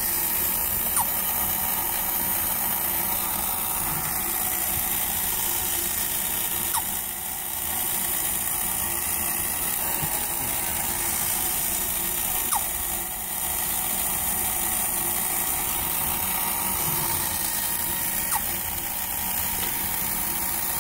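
Linemar battery-operated Sneezing Bear toy running: its small electric motor and gear train whirring steadily, with four brief rising chirps about six seconds apart.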